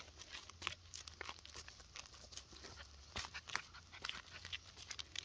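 Gravel crunching under a Bernese mountain dog puppy's paws and a person's sandalled steps as they move about: many small, irregular crunches and scuffs.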